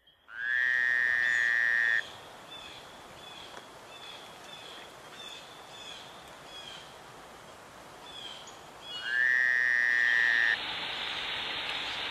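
A long, even trilling animal call, gliding up at its start, given twice with short chirps between, most likely a frog or toad. Near the end a steady rush of falling water starts.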